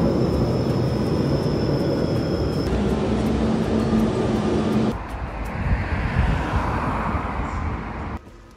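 Passenger train at a station platform: a loud, steady rumble with a thin high squeal over the first few seconds as it pulls in, then the noise of the train standing with its doors open for boarding. It cuts off suddenly near the end.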